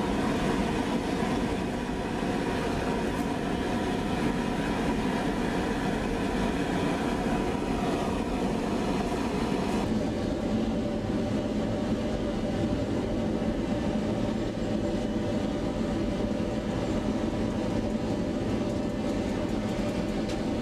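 Metal-melting furnace burner running with a steady, continuous rushing noise; the sound changes in tone about ten seconds in.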